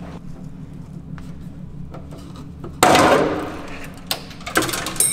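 Sheet-metal rear floor pan (spare-tire well) of a VW Mk5 GTI being pulled and bent down as it comes free of the body: a sudden loud metallic crash about three seconds in that fades over a second, then a few sharp metal clanks near the end, the last one ringing.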